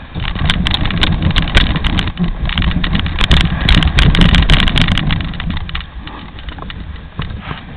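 Dog sled running over packed snow: a loud scraping rumble from the runners, with quick clicking rattles from the sled, easing off about five seconds in.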